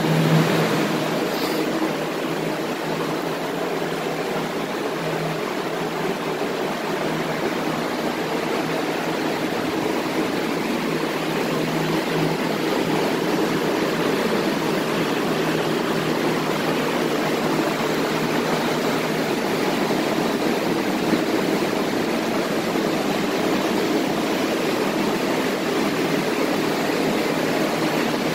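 Carpet-drying air movers (centrifugal blower fans) running, a steady loud rush of air with a low hum under it, blowing across flood-soaked carpet.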